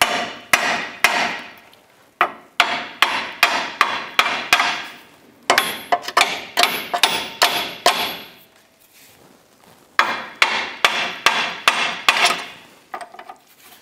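Hammer striking a steel chisel wedged in the pinch-bolt slot of a rusty steering knuckle, spreading the clamp to release the ball joint stud. Repeated sharp metallic strikes, about three a second, in runs, with a pause of about two seconds past the middle.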